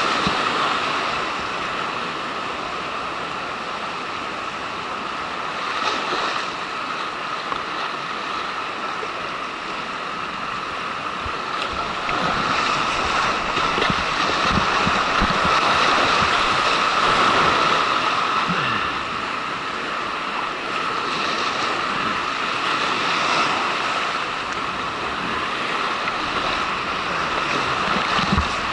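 Rushing, crashing whitewater of a creek at high flood flow, heard up close from a kayak running big standing waves, with splashes of paddle strokes and water striking the camera. The rush grows louder about halfway through.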